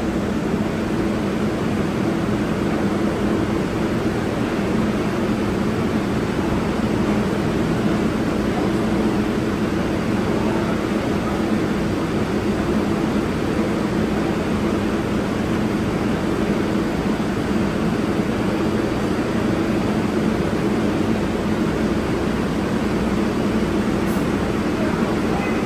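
Steady rumble and hum of an R142A subway train, with a constant low droning tone that does not change in pitch or level.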